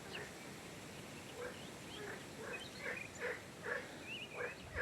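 Frogs croaking faintly in a quick repeated series, about two to three calls a second, growing a little louder; a bird chirps briefly near the end.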